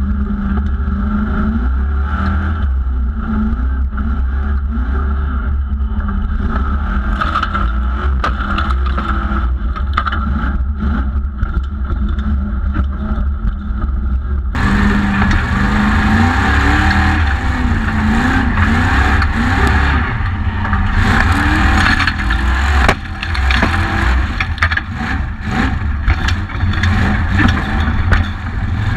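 Onboard sound of a formula offroad Jeep's engine revving up and down hard as it drives over rough gravel and grass, with frequent knocks and rattles from the chassis. The sound changes abruptly about halfway through, becoming louder and brighter.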